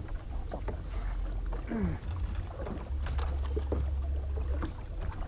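Wind buffeting the camera microphone in a low, uneven rumble, strongest in the second half, with scattered small knocks and clicks of gear in a boat.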